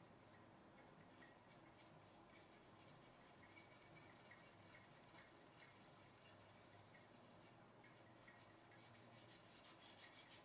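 Faint, scratchy rubbing: a continuous run of light strokes, like something being rubbed or scraped by hand, over low room tone.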